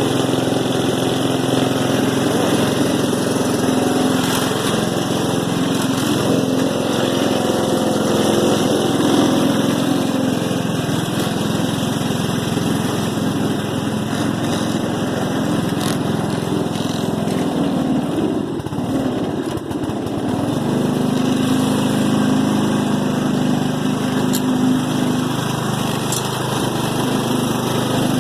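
Small Allis-Chalmers riding lawn mower's engine running steadily. About two-thirds of the way in its note sags briefly, then picks back up.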